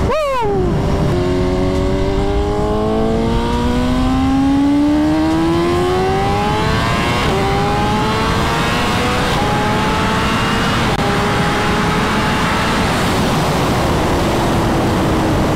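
BMW S1000RR inline-four engine, fitted with BTMOTO Stage 2 velocity stacks and intake flapper delete, accelerating hard through the gears. The pitch climbs and drops back at about four upshifts, after a quick blip right at the start, and falls as the throttle eases near the end. A steady rush of wind noise runs underneath.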